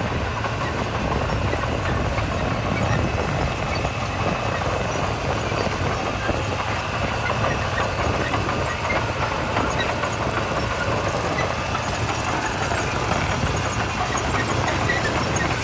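Heavy diesel construction machinery running steadily, with scattered small clicks and rattles over the engine.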